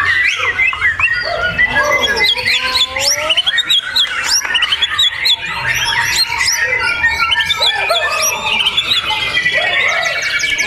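A songbird singing a fast, varied, unbroken run of chirps, sweeping whistles and trills.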